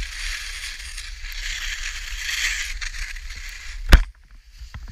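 Skis hissing and scraping over snow, with wind rumbling on the action-camera microphone. A single sharp knock comes about four seconds in, after which the hiss drops away.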